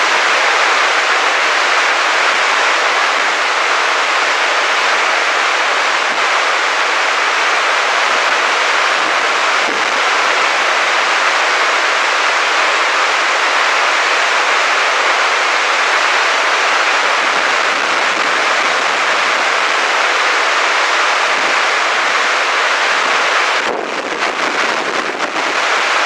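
Three-tiered waterfall running hard with snowmelt: a loud, steady rush of white water tumbling over rocks. The rush dips slightly for about a second and a half near the end.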